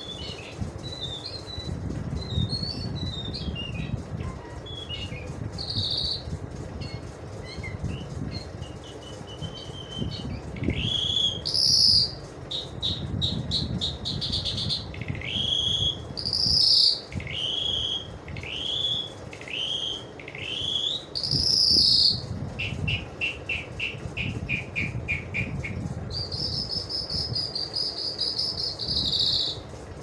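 Caged lark (an Irani jal) singing. A varied run of short chirps and whistles leads into a string of loud rising slurred notes in the middle. It then gives a rapid trill and ends on a long buzzy held note, over a steady low background rumble.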